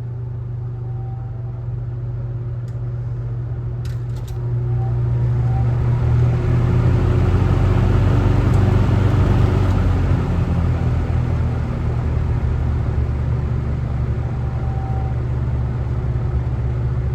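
Vintage Kmart K23 box fan with three metal blades running, its motor giving a steady low hum under the rush of air. A few clicks come about four seconds in; the fan then grows louder over the next several seconds as it speeds up and settles into a steady run.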